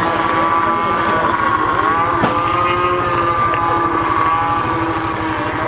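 Racing snowmobile engine running at high, steady revs with a continuous whine; the pitch dips slightly about two seconds in, then holds.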